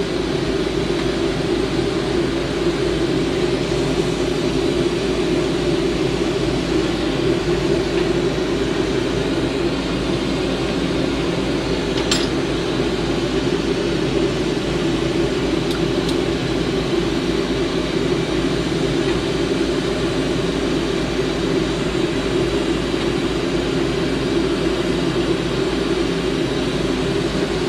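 Steady roar of a glassblower's bench torch flame together with the hum of the bench exhaust fan, running without a break.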